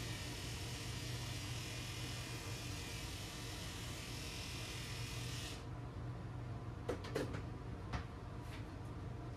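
Electric dog grooming clippers buzzing steadily, then switched off suddenly a little over halfway through, followed by a few light clicks. A steady low hum runs underneath throughout.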